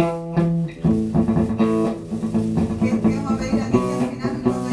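Electric guitar and bass guitar playing together through amplifiers, a run of held notes and chords changing every fraction of a second.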